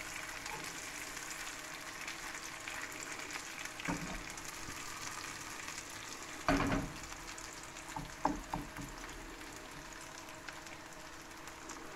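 Cheese frying in the fat it has released in a frying pan, a steady sizzle. A slotted spatula knocks and scrapes against the pan a few times, loudest about six and a half seconds in.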